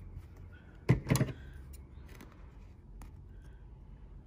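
Scissors being picked up off a work table: a short clatter of two or three quick knocks about a second in, then faint fabric handling.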